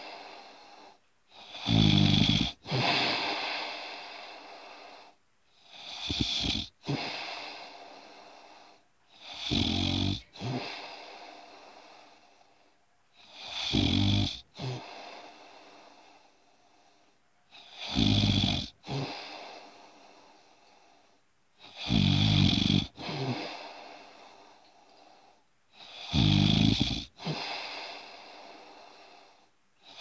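A sleeper snoring in a steady rhythm, about one snore every four seconds: each breath brings a short, loud, low rattle, followed by a breathy hiss that fades away.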